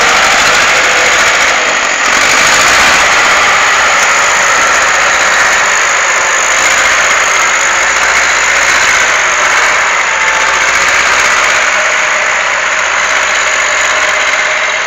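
LKT forestry skidder's diesel engine running steadily as the machine crawls along a muddy track, easing off slightly near the end as it pulls away.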